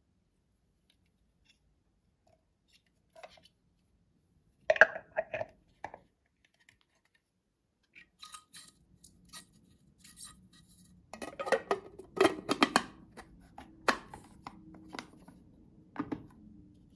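Plastic parts of a SilverCrest mini chopper handled and fitted together: the stainless steel blade attachment and the clear plastic bowl knocking and clicking against each other in irregular taps and rattles. The busiest clusters come about five seconds in and again around twelve seconds, with a few single knocks near the end.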